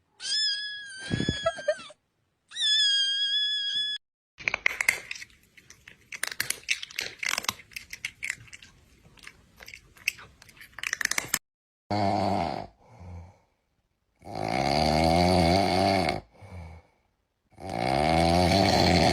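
Cat sounds: two high meows, then about seven seconds of crunchy chewing, then three long, low, rough cries.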